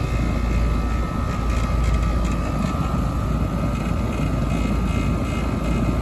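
A 4-ton central air conditioner's outdoor condensing unit running steadily, its compressor and condenser fan going together: a low hum with a steady high whine on top. The compressor, running without its hard-start kit, doesn't sound too healthy.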